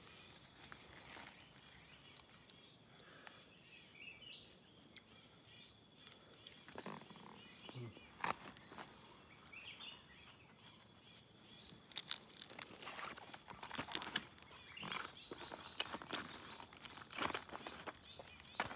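Quiet forest ambience: a short high chirp repeating roughly once a second over a faint steady high whine, with brief bird twittering. Crackles and rustles of hands on banana leaves pick up in the second half.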